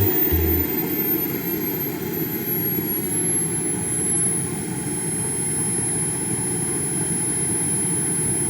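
Model jet turbine engine running at a steady speed: a rushing roar with a very high, thin whine that settles slightly in pitch over the first few seconds and then holds steady.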